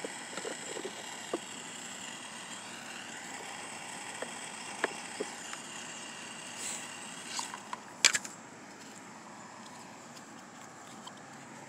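Small plastic clicks and taps as pressure washer nozzle tips are handled and pushed into their holders, with one sharp click about eight seconds in, over a steady mechanical hum.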